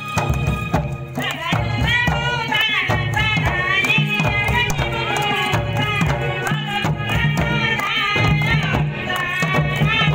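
Folk music: two-headed barrel drums (dhol) beaten by hand in a quick, steady rhythm, with a voice singing a wavering folk melody over them from about a second in.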